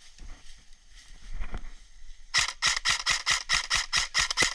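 Airsoft gun firing on full auto: a fast, even stream of shots, about six a second, starting a little past the middle, after a couple of seconds of faint clicks.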